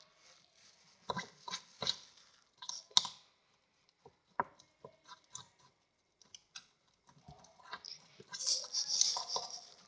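Thickening slime of white glue and activator being stirred in a container, with irregular sticky clicks and squelches and a denser, wetter stretch near the end. The slime is setting and starting to pull away from the container's sides while still sticky.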